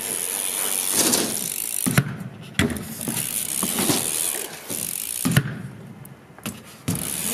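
BMX bike riding across concrete and up a ramp: the rear hub's freewheel ratchet clicks as it coasts over the tyres' rolling noise. Several sharp knocks come from the bike hitting the ramp.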